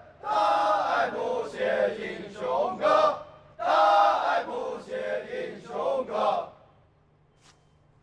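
A group of men chanting in unison, in two long phrases with a short break between them, stopping about six and a half seconds in.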